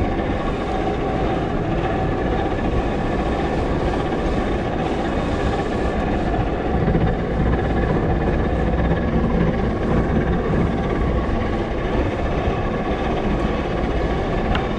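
Fishing boat's engine running steadily: a continuous low rumble with a steady whine over it.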